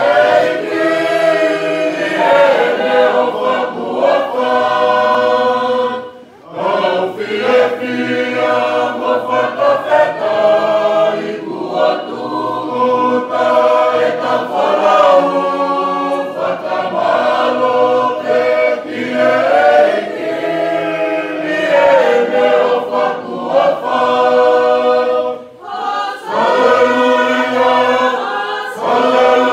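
Mixed choir singing a hymn unaccompanied in several-part harmony, with two short breaks between phrases.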